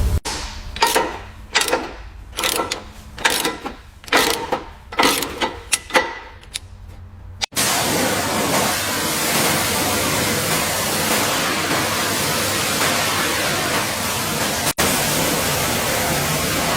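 A run of sharp, irregular knocks or taps, roughly two a second, for about seven seconds. Then an abrupt change to a steady, loud hiss, broken once by a momentary dropout.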